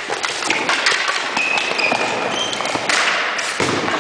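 Ball-hockey play on a gym floor: sticks and ball knock and tap repeatedly, with short squeaks and echoing crowd noise, and a brief burst of louder crowd noise about three seconds in.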